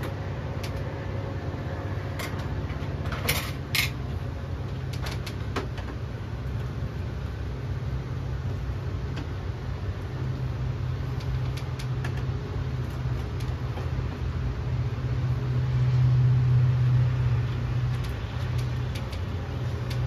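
A steady low mechanical hum, swelling somewhat in the second half, with a few short plastic clicks and taps in the first few seconds from hands working on the opened indoor unit of a split air conditioner.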